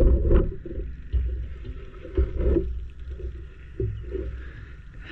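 Handling noise picked up by a camera mounted on a rifle scope: a low rumble with a few knocks as the air rifle is shifted, loudest at the start and again about two seconds in.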